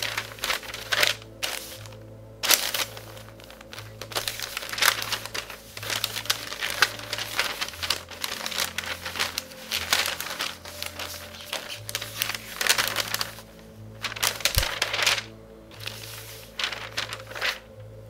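Newspaper pages rustling and crinkling in irregular bursts as they are handled and turned. Soft background music with a repeating low note runs underneath.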